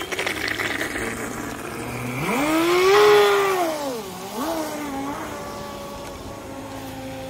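Joysway Rocket V2 RC speedboat's brushless electric motor whining at speed. The pitch climbs about two seconds in and is loudest around three seconds, then falls away, rises briefly once more, and settles to a lower steady tone as the boat runs on across the water.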